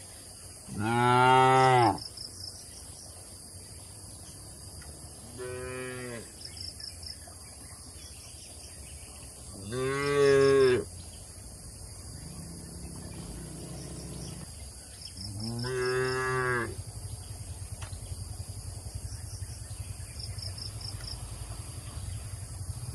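Cattle mooing: four drawn-out moos a few seconds apart, the first and third loud, the second fainter. Short high chirping trains of an insect sound between the calls.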